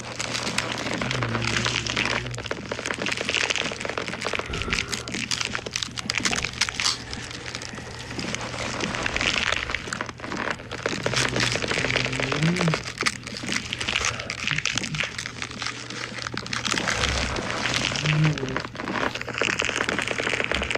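Dense, continuous cracking and crackling, a werewolf-transformation sound effect of bones cracking and body tearing, with a few short low vocal sounds mixed in and a steady low hum underneath.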